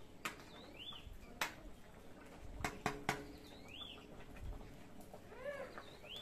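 A metal spatula clinking against an aluminium cooking pot: a few single clicks, then three quick ringing clinks about halfway through. Birds call in between, two short rising-and-falling chirps and a run of arching calls near the end.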